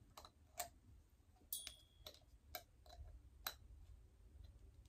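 Near silence with faint, irregular clicks and light taps from a small chicken figurine being handled in the fingers.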